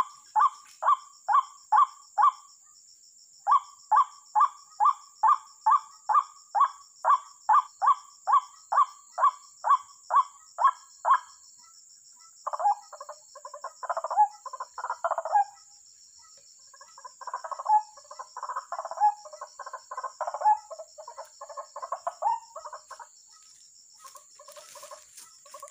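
White-breasted waterhen (ruak-ruak) calling: a steady run of repeated 'kruak' notes, about two and a half a second, that breaks after about eleven seconds into irregular bursts of chattering.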